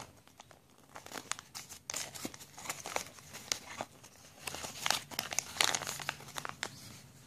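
Thin plastic toy wrapper and a folded paper instruction leaflet crinkling as they are pulled open and unfolded by hand. Irregular crackles throughout, loudest about five seconds in.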